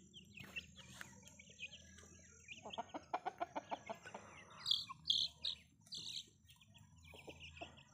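Chicks peeping in short high chirps among a flock of chickens, with a quick run of about a dozen clucks about three seconds in. The loudest sounds are a few sharp high peeps about five seconds in.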